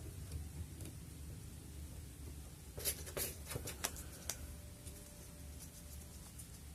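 Faint clicks and rustling of small parts being handled as motor wires are pulled free of 3M tape and heat-shrink tubing is worked onto them, with a short cluster of clicks about three seconds in.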